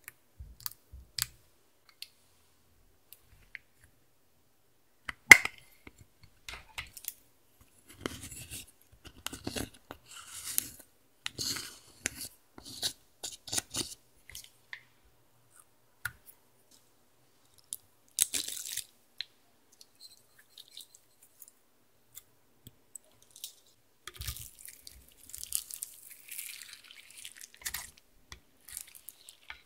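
Slime-mixing ASMR: sharp clicks and taps, then crumbly crunching and scraping as pressed eyeshadow is scraped out of its compact with a plastic spatula onto clear slime in a glass dish. Near the end, soft squishing and crackling as the glittery slime is lifted and folded over the makeup.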